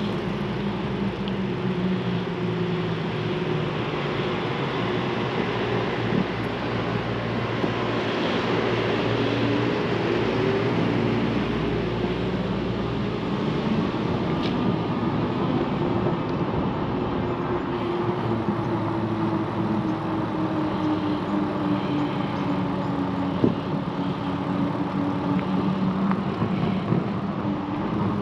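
Aventon Adventure e-bike in motion: a steady rush of wind and tyre noise, with a low hum that slowly drifts up and down in pitch.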